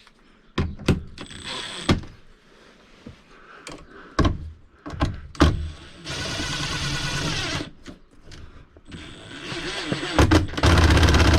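Power driver running the air conditioner's mounting bolts down, in two runs: one of about a second and a half about six seconds in, and a shorter one near the end. Several sharp knocks and clicks of tools and parts on the unit come before them.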